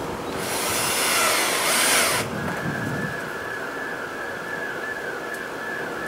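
Cordless drill-driver running for about two seconds as it drives a screw into a scooter's plastic body panel, then stopping abruptly. A steady high tone with a slow wobble follows over a low background hum.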